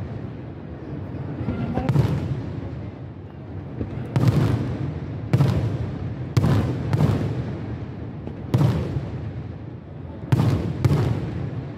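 Aerial firework shells bursting overhead: about eight loud booms at uneven intervals, each followed by a rolling echo.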